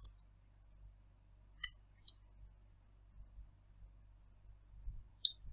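A few short, sharp clicks: two or three close together about one and a half to two seconds in, and one more near the end.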